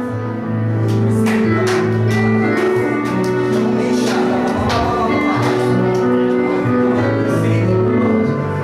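Live church band music: held keyboard chords over sustained bass notes, with drum and cymbal hits.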